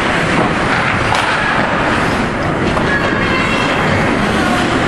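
Steady loud rush of ice hockey game noise in a rink, with faint clicks and scrapes from sticks and skates on the ice.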